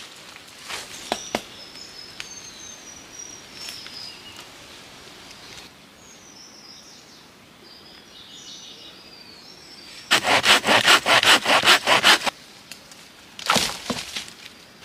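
Birds whistling over light rustles and snaps of footsteps in leaf litter; about ten seconds in, a hand saw cuts wood in a quick, even run of rasping strokes for about two seconds, with another short burst of rasping near the end.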